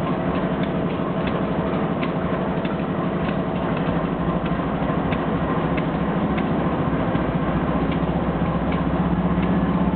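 Diesel locomotive engine running with a steady hum and light ticking, growing a little louder and deeper near the end.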